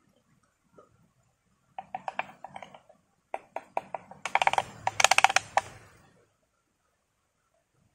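Bamboo spoon scraping and knocking inside a bamboo cup while scooping out set jelly: a quick run of clicks and scrapes starting about two seconds in, busiest and loudest around the fifth second, stopping about six seconds in.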